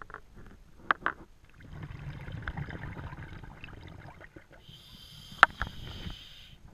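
Scuba diver breathing through a regulator underwater: a long low bubbling exhale, then a hissing inhale. There are two sharp knocks about a second in and a loud one during the inhale.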